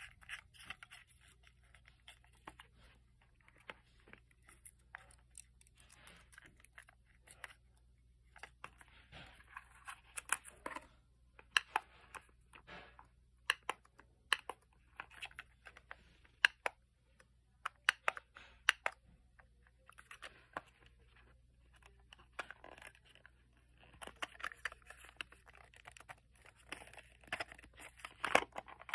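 Plastic housing of a small battery-powered pivoting LED work light being handled, twisted and switched: scattered sharp plastic clicks, thickest in the middle, with rubbing and scraping between them and a longer stretch of scraping near the end.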